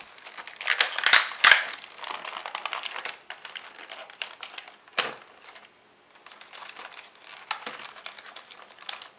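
Cardboard toy box and its plastic insert being handled and pulled open, with crinkling and rustling of the packaging that is loudest in the first two seconds. There is one sharp knock about five seconds in, and scattered small clicks and rustles after it.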